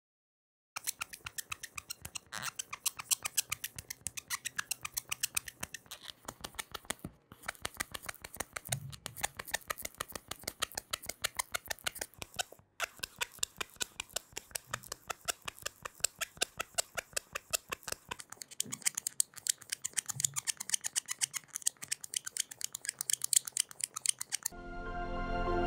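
Sanding sponge block scrubbing back and forth on an amber stone in rapid, even strokes. It is the fine sanding stage of polishing the amber.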